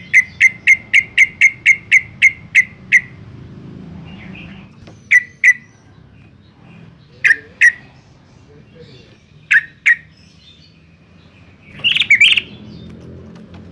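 Yellow-vented bulbul calling: a fast run of about a dozen sharp notes, roughly four a second, then pairs of notes every two seconds or so, and a short jumbled chattering burst near the end.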